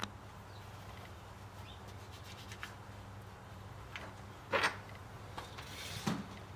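Faint clicks and two short scrapes of bike parts being handled while a rear brake is fitted, over a low steady hum.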